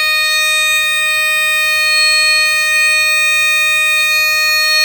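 Vintage Universal Smoke Signal SS200 smoke detector sounding its alarm continuously: one loud, steady, buzzy tone with many overtones, holding unbroken while the unit is set off in a test.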